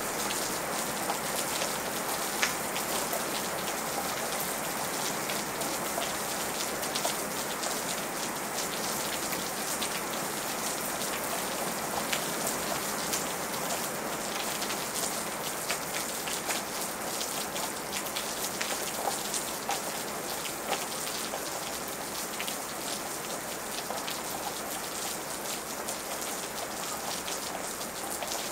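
Steady rain: a dense, even hiss of falling drops with many separate drops ticking through it and a few louder single hits.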